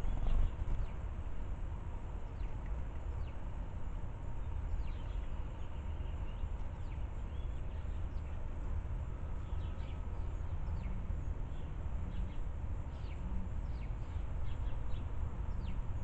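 Sparrows chirping at a seed feeder in short, high chips, scattered at first and coming more often near the end, over a steady low rumble.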